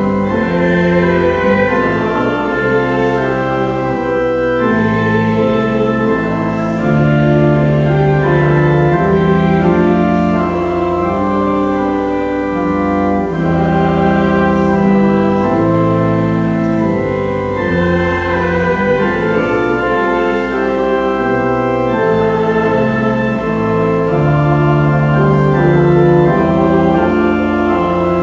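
Church organ playing slow, sustained chords that change every second or two over a moving bass line.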